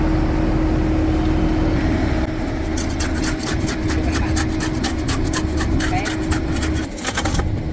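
A machine engine running steadily with a constant hum. From about three seconds in, quick scraping and clicking strokes join it, with voices in the background.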